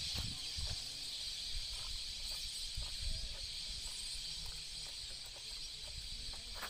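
Outdoor lakeside ambience: a steady high-pitched hiss-like drone from the surrounding woodland, with low wind rumble and bumps on the microphone.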